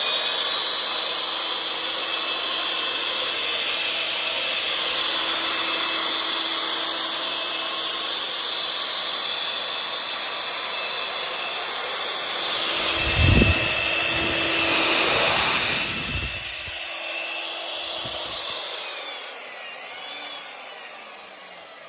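Electric pipe facer of a butt fusion welding machine for HDPE pipe running, its rotating blades shaving the pipe ends, with a steady motor whine. It grows louder and deeper about 13 seconds in, then dies away over the last few seconds.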